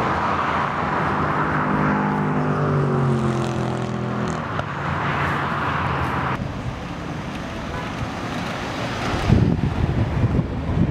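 A motor vehicle passing, its engine note falling a little and fading about four seconds in, over steady outdoor noise. The sound changes abruptly a little after halfway, and wind rumbles on the microphone near the end.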